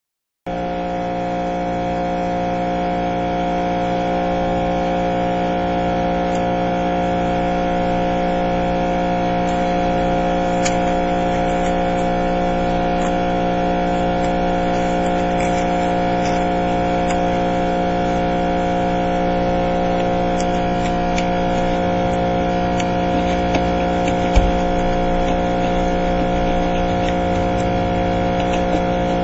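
Steady mechanical hum holding one constant pitch, starting abruptly about half a second in, with a single sharp knock about three quarters of the way through.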